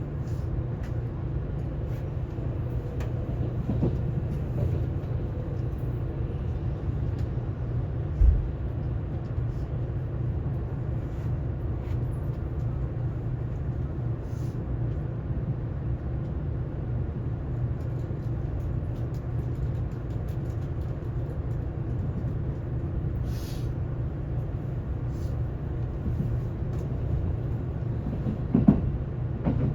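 Kintetsu 22000/22600 series limited express train running, heard from inside the passenger cabin: a steady low rumble with faint scattered clicks. A sharp thump comes about eight seconds in, and another short jolt comes near the end.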